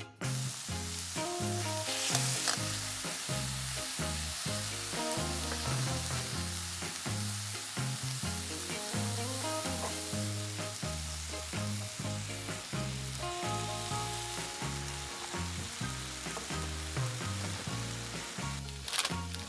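Food sizzling steadily in a hot pan, cutting off suddenly about a second before the end, with background music and its bass line underneath.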